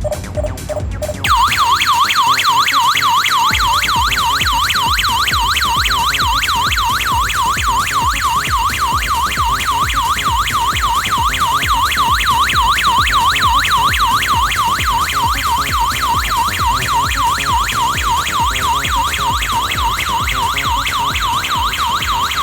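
Home security alarm siren sounding loudly as a fast electronic warble, sweeping up and down about four times a second, after the armed system has been set off. It starts about a second in, after a few short beeps.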